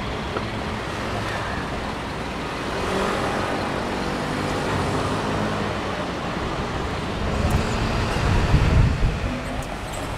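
City street traffic: car and truck engines running and passing close by at an intersection, a steady mix of engine hum and road noise that swells into a louder low rumble about eight seconds in.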